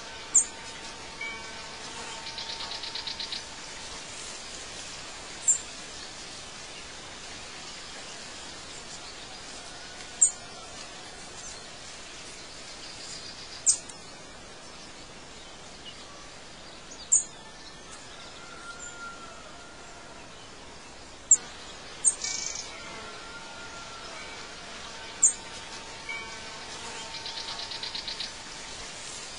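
Birdsong ambience: short, sharp, high chirps every few seconds over a steady outdoor hiss, with a fast buzzy trill about two seconds in and again near the end.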